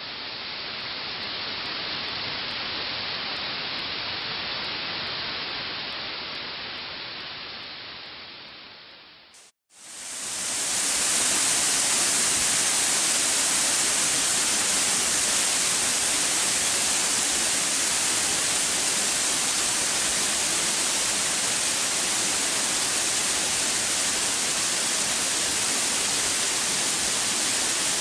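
Steady rush of a waterfall pouring into a gorge, fading out about a third of the way in. After a brief cut, a louder, brighter rush of fast white water tumbling over a stepped weir and rocks runs on steadily.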